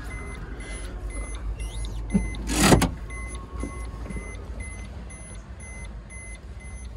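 Faint electronic beep repeating about twice a second over a steady low rumble, with a loud short thump about two and a half seconds in.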